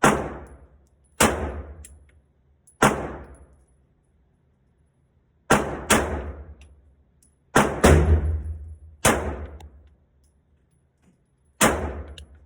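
CZ P10 pistol firing nine shots at an uneven pace, each sharp crack trailing off in a ringing echo. Some shots come close together in pairs: about five and a half and six seconds in, and twice just before eight seconds.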